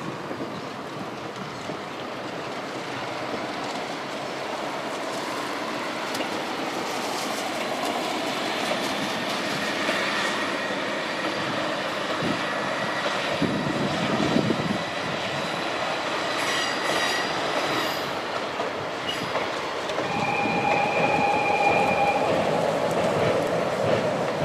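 Yellow ZSSK class 813 diesel railcar unit running past, its engine and wheels on the rails growing slowly louder, with some wheel squeal. About twenty seconds in it sounds a single horn note for about two seconds.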